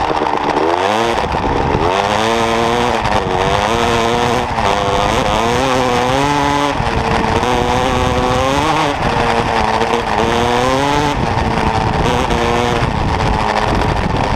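KTM 250 SX two-stroke single-cylinder dirt bike engine under hard riding, revving up and down so that its pitch climbs and drops again and again.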